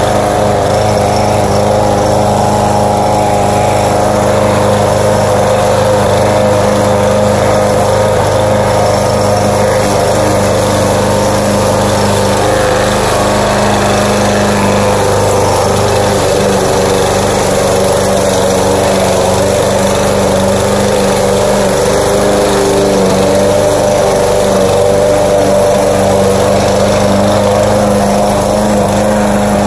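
Walk-behind rotary lawn mower's small petrol engine running steadily at a constant speed while cutting grass, a loud, even engine drone.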